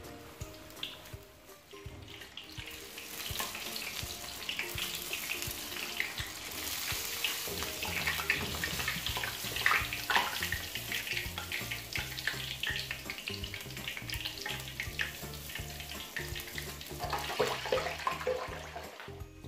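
Breaded pork cutlets deep-frying in hot oil in a wok, the oil sizzling and crackling steadily and growing louder about three seconds in.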